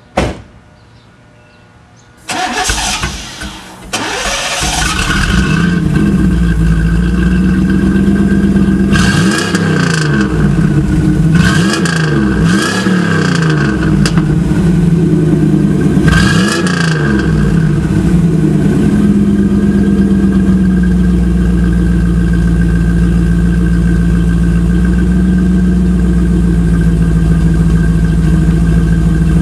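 A 1991 Chevrolet Camaro's engine running through a 3-inch Flowmaster exhaust. After a sharp click, it cranks and fires about two seconds in and settles to a steady idle. It is blipped up in a handful of quick revs in the middle, then drops back to an even, deep idle.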